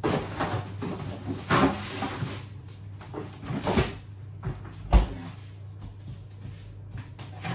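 Items rustled and moved about inside an open double-door fridge-freezer, then the door pushed shut with a single thud about five seconds in, over a steady low hum.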